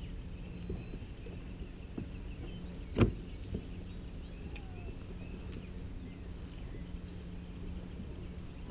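One sharp knock about three seconds in, over a steady low hum and a few faint clicks.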